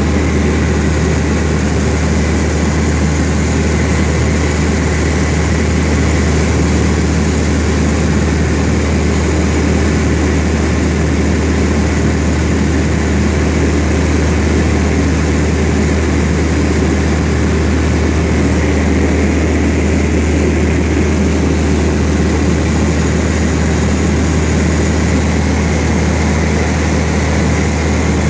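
A small single-engine propeller airplane's engine and propeller running at a steady cruise, heard loud from inside the cockpit as an unbroken low drone with a hiss of airflow over it.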